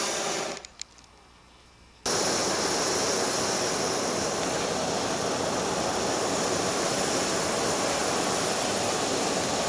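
Hot-air balloon's propane burner firing: a loud, steady rushing noise that cuts out abruptly under a second in and comes back just as suddenly about a second later, then holds steady.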